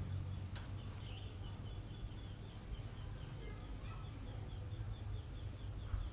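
Outdoor ambience with a small creature's short high chirps repeating about three times a second, over a low rumble.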